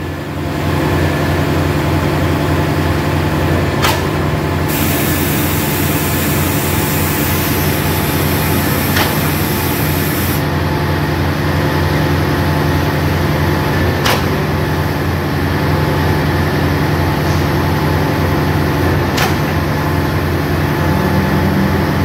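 Frog concrete pump pushing concrete through its 125 mm delivery pipe: an engine runs steadily, with a sharp knock about every five seconds. A high hiss lasts several seconds in the first half.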